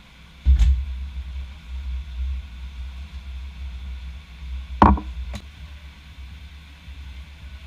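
Kitchen containers being handled on the worktop: a thump about half a second in, then a sharp knock about five seconds in and a lighter one just after, over a steady low rumble.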